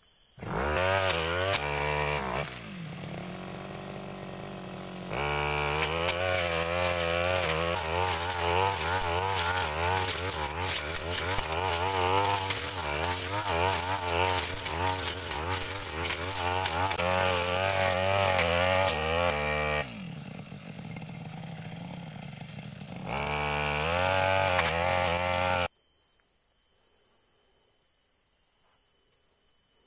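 Petrol brush cutter engine revving up and running hard while cutting through weeds and undergrowth, its pitch wavering with the load. It twice drops back to a lower speed and revs up again, then stops abruptly near the end, leaving crickets chirping steadily.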